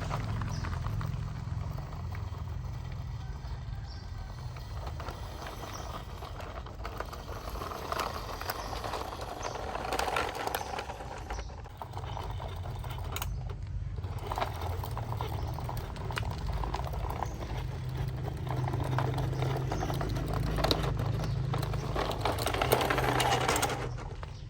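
Heavy diesel machinery running steadily, with a continuous stream of clattering knocks and clanks over the engine.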